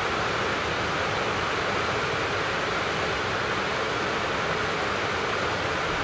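Heavy rain falling steadily on the town, a dense even hiss with no let-up.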